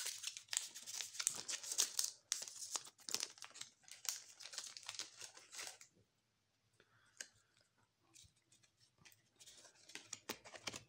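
Foil booster-pack wrapper crinkling and tearing as it is opened and the cards are pulled out, for about six seconds. After a short pause, sparse light clicks of playing cards being handled and flicked through.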